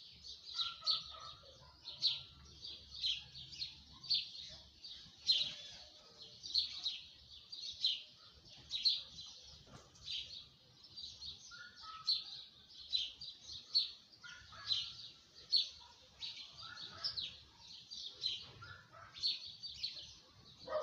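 Songbirds chirping: short, high chirps repeating about once or twice a second throughout, with fainter, lower calls from another bird now and then.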